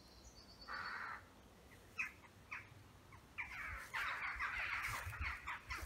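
Harsh calls of a crow-family bird: one call about a second in, a few short calls around two seconds, then a longer run of harsh calls through the second half.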